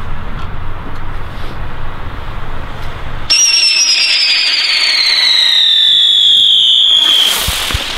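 Funke Tornado-Wirbel spinner firework: about three seconds of low hissing while the fuse burns, then it ignites into a loud whistle that slowly falls in pitch as it spins, ending near the end in a short rushing hiss as it takes off.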